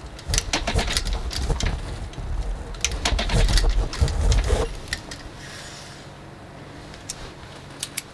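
JUKI DSU-142 cylinder-bed industrial sewing machine stitching through a leather bag handle, its needle knocking through the leather for about five seconds before it stops. After that, a quieter steady hum with a few light clicks.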